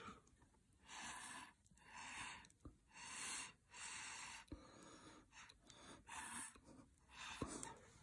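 Faint, short puffs of breath blown through a drinking straw, about seven of them, each around half a second long, pushing wet acrylic pour paint across a canvas.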